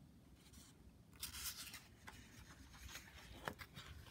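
Faint rustle of a picture book's paper page being handled and turned: a soft papery swish about a second in, then a light tick or two near the end.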